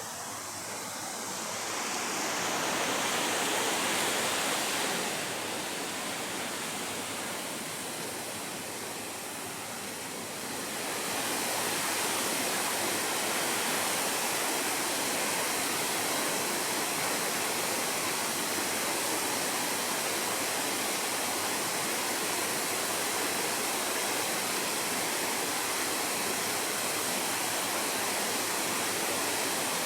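Nachi Falls, a single tall waterfall of about 133 metres, making a steady rush of falling water. It swells briefly, eases off, then grows louder about a third of the way in and stays even.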